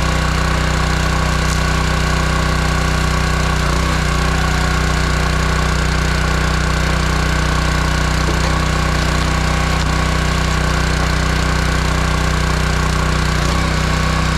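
Small gasoline engine of a hydraulic log splitter running steadily, with its pitch dipping briefly twice.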